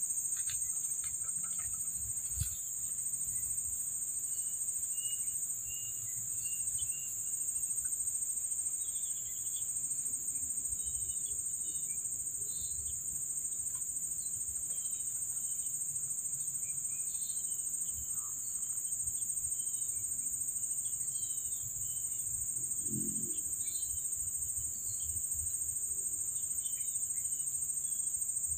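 Steady, high-pitched drone of insects, with many short bird chirps scattered over it.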